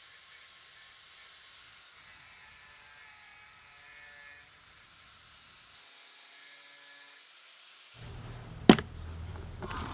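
A faint steady hiss, then a low hum comes in about eight seconds in and a single sharp click sounds just after it.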